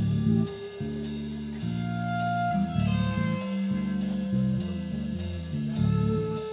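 Live rock band playing an instrumental passage: an electric guitar on a white Explorer-style body and bass play a shifting low riff over a drum kit, with cymbal strikes about twice a second.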